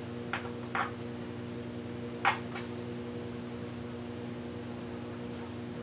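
Steady low hum of a room appliance, with a few short soft sounds of hands knotting cotton T-shirt strips, the sharpest about two seconds in.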